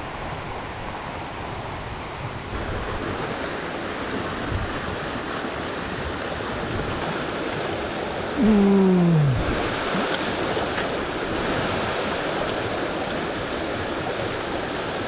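Mountain river rushing steadily over rocks. About halfway through, a brief vocal sound falls in pitch for under a second and is the loudest moment.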